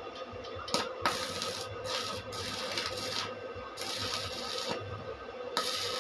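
Stick (arc) welder crackling and sizzling as the electrode welds onto a steel pipe, in several bursts of about a second each, starting about a second in.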